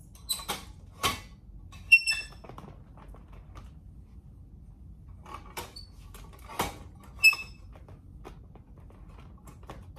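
Metal wheelchair foot plates being flipped down and set into place: scattered clicks and clanks, two of them ringing briefly, about two seconds in and about seven seconds in.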